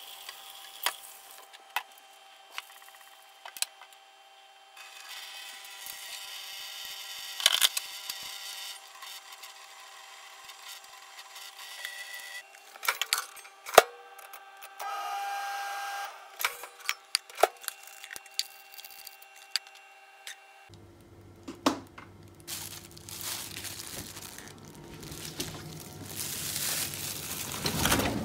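Kitchen handling sounds: clicks and knocks with a stretch of running water at a steel sink, then a growing rustle of a plastic bag near the end.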